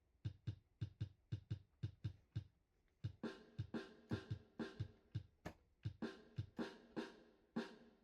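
Background music: a drum beat with a deep kick on each hit, about three hits a second, thinning out briefly near the middle.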